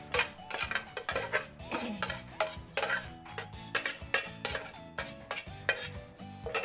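Aluminium pot knocking and scraping against a stainless-steel mixing bowl as it is tipped and emptied, a quick irregular run of metal clinks and taps.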